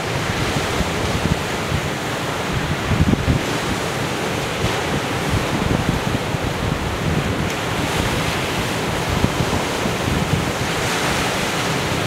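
Sea waves breaking and washing over black volcanic shore rocks in a steady surf, with wind gusting on the microphone.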